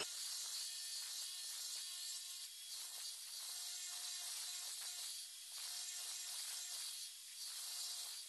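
Router spinning a blue abrasive disc across a granite surface plate, grinding the stone down to level: a steady high hiss with a faint hum that comes and goes.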